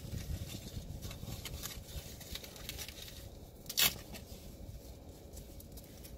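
Quiet rustling and scraping as an action-camera wristband mount is handled, with faint scattered clicks and one sharp click a little under four seconds in.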